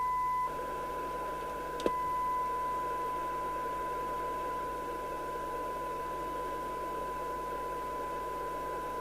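CB radio's speaker reproducing a steady 1 kHz test tone from a signal generator, with receiver hiss coming up under it about half a second in as the signal level is brought down toward 10 dB SINAD sensitivity. There is a single click near the two-second mark.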